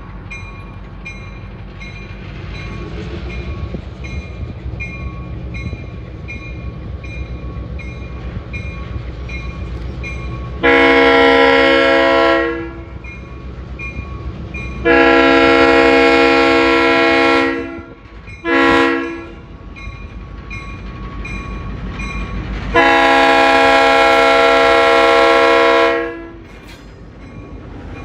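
EMD GP11 diesel locomotive sounding its multi-note horn for a grade crossing: long, long, short, long, with the last blast held longest. Its diesel engine rumbles louder as it approaches, and a crossing bell rings steadily underneath.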